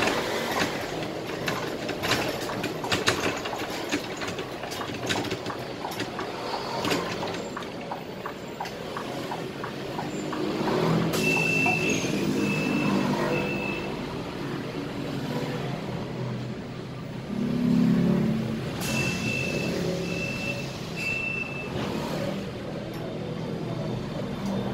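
Scania K320IA bus driving, heard from the driver's cab: steady engine and road noise with frequent rattles and clicks. Twice there is a set of three short high beeps, the first about eleven seconds in and the second near twenty seconds.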